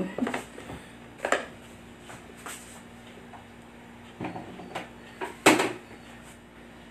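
Red plastic thermos flask and kitchen items being handled: a handful of separate knocks and clicks as the flask's lid is worked and things are set down on the counter, the loudest about five and a half seconds in.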